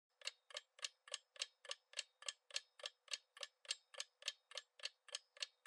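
Quiz countdown-timer sound effect: a clock ticking evenly, about three and a half sharp ticks a second, starting right at the beginning.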